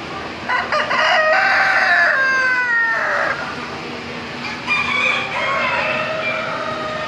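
Roosters crowing: a long crow starts about a second in and drops in pitch at its end, and a second crow comes about five seconds in.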